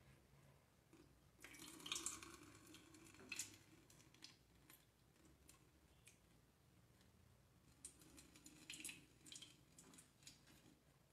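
Faint pouring of a thick sorbet mixture through a fine-mesh metal strainer into a metal pot, in two short spells about two and eight seconds in. Light clicks come from a plastic ladle against the copper pan.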